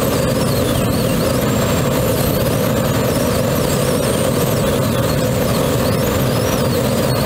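Steady rush of air around a Grob G103 Twin Astir glider in flight.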